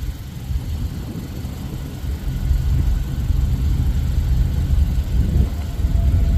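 A lashup of diesel-electric locomotives running, a steady low engine rumble that grows louder toward the end.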